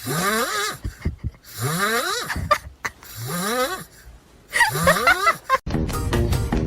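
Four breathy vocal cries from an animal, each under a second and rising in pitch. Music starts near the end.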